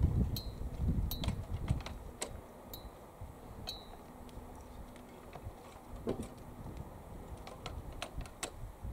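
Wind buffeting the microphone, with a scatter of sharp clicks throughout and a faint steady drone in the middle.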